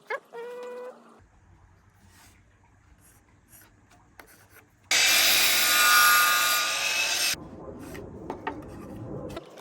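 A saw cutting through timber skirting board, a loud stretch of about two and a half seconds starting about five seconds in, with quieter wood rubbing and light taps before and after.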